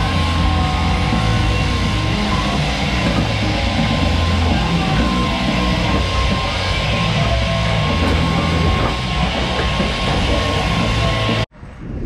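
Loud rock music with a heavy beat and bass, which cuts off suddenly near the end.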